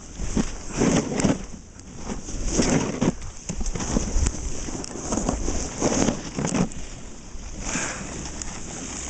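Wind buffeting the camera's microphone in a low rumble, with repeated surges of ski edges scraping and hissing on snow.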